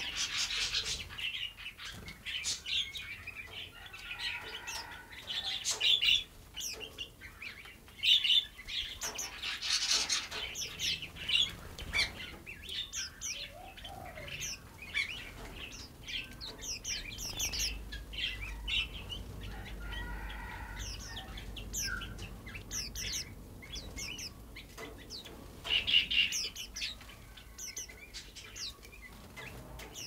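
Small songbirds chirping in many short, high calls, with several louder flurries of calls and wing flutters.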